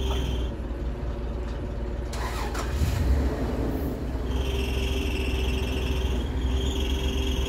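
Forklift engine running steadily, with a high whine over it that drops out about half a second in and comes back about four seconds in. A brief clatter about three seconds in.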